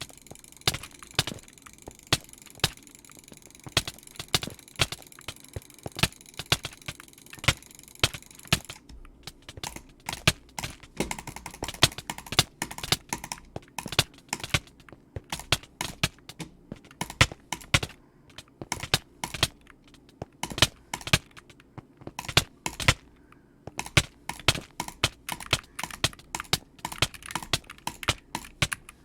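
Computer mouse button clicked over and over at an uneven pace, roughly two to four sharp clicks a second. A steady high hiss sits behind the clicks for the first nine seconds or so, then stops.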